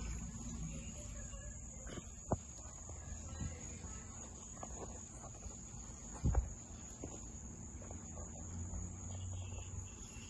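Steady high chirring of insects, like crickets, over a low background rumble, with a few sharp knocks; the loudest comes about six seconds in.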